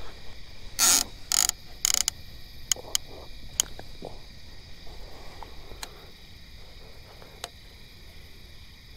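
Rustling and scraping as a fishing rod and reel are grabbed and lifted from a kayak, loudest in the first two seconds, followed by a few sharp, separate clicks of handled gear. A steady high hum sits in the background.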